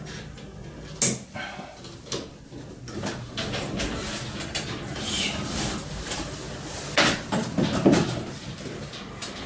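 Hands-on work with metal parts: a few sharp knocks and clatters, loudest about a second in and again around seven to eight seconds in, with rustling and scraping between them.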